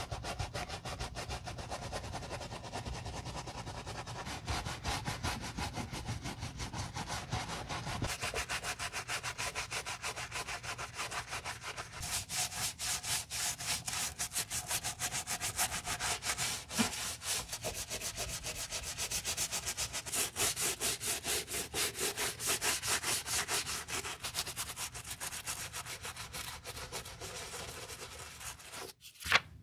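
Stiff-bristled wooden shoe brush scrubbing a soapy canvas sneaker and its rubber sole in rapid back-and-forth strokes. The scrubbing stops just before the end, followed by a single sharp click.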